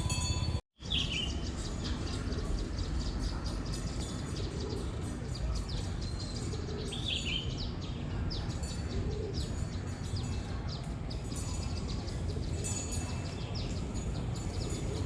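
A group of small birds chirping, with many short, high calls overlapping throughout, over a steady low background rumble. The sound drops out completely for a moment about half a second in.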